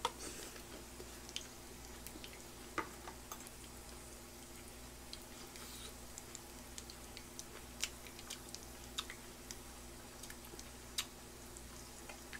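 Pork belly grilling on an electric grill pan, fat spitting in faint, irregular pops and crackles over a low steady hum.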